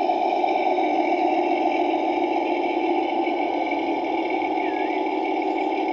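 Garden-railway model diesel locomotive running slowly along the track, a steady mechanical drone.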